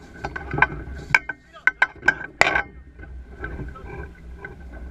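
A quick run of sharp, irregular clicks and knocks from fishing reels and rods being worked, about eight in two seconds, over the steady low drone of the boat's engine.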